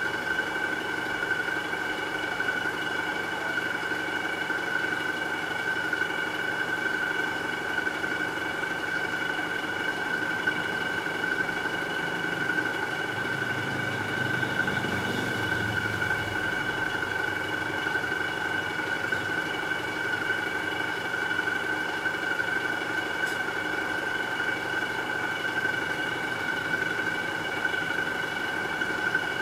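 Aquarium equipment running: a steady electrical hum with a high, even whine over a light hiss, which does not change.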